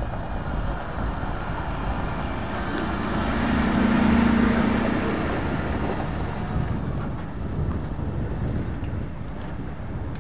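British Army MAN SV military truck driving past: diesel engine and tyre noise growing louder to a peak about four seconds in, then fading as the truck drives away.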